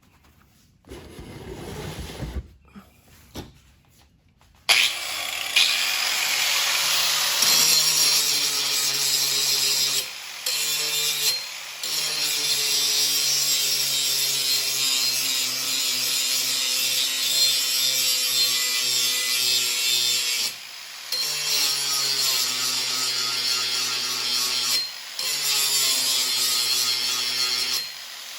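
A power grinder running and grinding on steel from about five seconds in, with a steady hum under a loud hiss and a few short breaks where it comes off the work. Before that, gusts of wind on the microphone.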